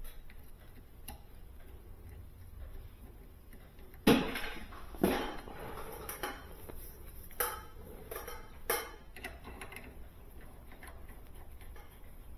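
Several sharp metallic clinks and knocks, a few seconds apart, from tools and fittings being handled on a refrigerator's refrigerant lines.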